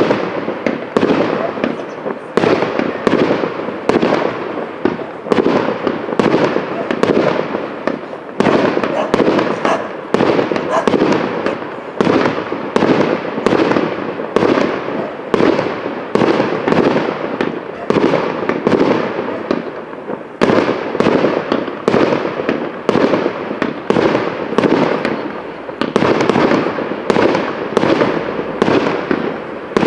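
Fireworks going off in a dense, unbroken barrage, several loud bangs a second one after another.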